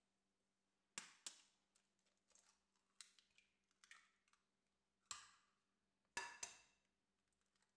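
Eggs tapped against the rim of a porcelain bowl and cracked open: a run of faint, sharp taps and clicks with a brief ring, including a quick pair about a second in and another pair near the end.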